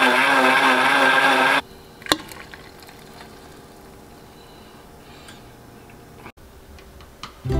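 Countertop blender motor running at full speed, pureeing crushed peanuts, sticky rice and beef stock into a thick sauce, with a wavering hum. It stops abruptly about a second and a half in, followed by a single sharp click.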